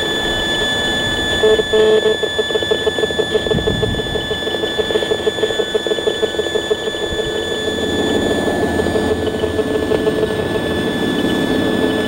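An EMFields Acoustimeter's speaker plays the radio-frequency signals it picks up from a cell tower as sound: a hissing noise with thin steady high whistles. From about a second and a half in to about seven seconds a rapid, evenly pulsing buzz runs through it, and from about eight seconds the noise turns rougher.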